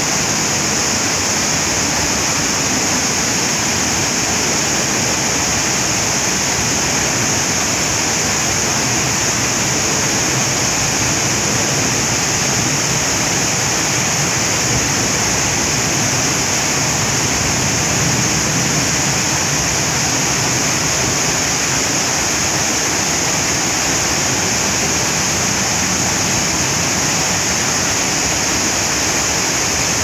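Waterfall pouring down a rock face and splashing below: a loud, steady rush of water with a strong hiss.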